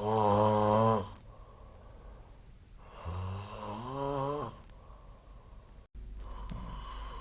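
A person snoring twice: a short, loud snore, then a longer snore that rises in pitch. About six seconds in, the sound cuts out for an instant and a steady low hum follows.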